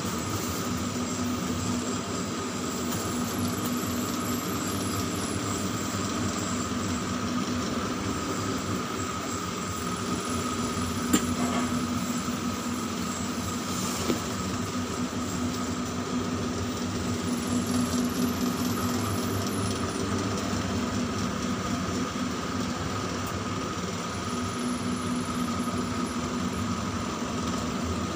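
Steady mechanical hum of a tower crane's machinery heard from inside the operator's cab, with a faint high whine that swells and fades a few times. Two short sharp clicks come about 11 and 14 seconds in.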